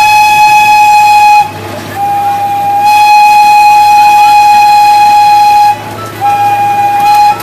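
A loud whistle held at one steady pitch in long blasts: one blast ends about a second and a half in, a second lasts nearly four seconds, and a short third one comes near the end.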